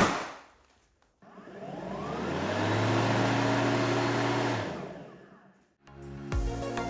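A click, then the Ryobi ONE+ 18V cordless lawnmower's electric motor spins the blade up with a rising whine, runs steadily for about two seconds, and winds down with falling pitch once released.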